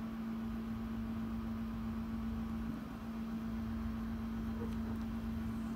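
A steady low electrical-sounding hum with a faint hiss underneath: constant background machine or room noise.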